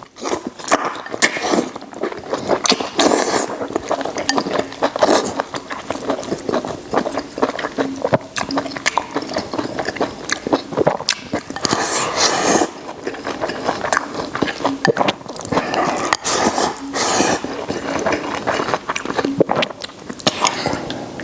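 Close-up chewing of soft, springy boiled pork intestines and rice: wet mouth sounds with a dense, irregular crackle of smacks and clicks.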